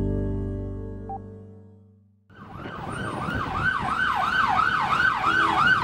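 A soft held tone of an intro logo sting fades away over the first two seconds. Then an ambulance siren starts in a fast yelp, about three up-and-down sweeps a second, over street traffic noise.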